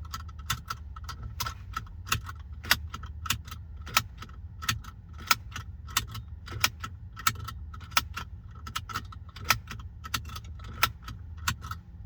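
A car seat belt tongue repeatedly latched into its buckle and released, with a sharp metallic click about every two-thirds of a second over a low steady hum. This repeated buckling is the routine that disables the Ford S-Max's seat belt chime.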